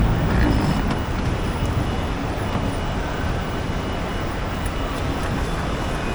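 Steady rumbling background noise of a busy airport terminal, with no distinct events.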